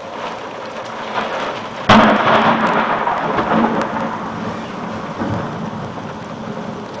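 Steady rain, then about two seconds in a close lightning strike's thunderclap: a sudden sharp crack, the loudest sound, followed by rumbling that slowly fades over several seconds.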